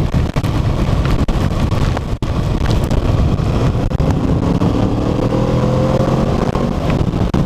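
Kawasaki motorcycle riding on, its engine under heavy wind buffeting on the microphone, with the engine note rising slowly in the second half as it accelerates.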